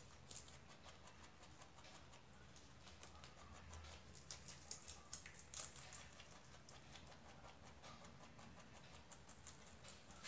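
Rabbit chewing leafy greens: faint, irregular crisp crunching clicks and leaf rustles, coming in quick clusters.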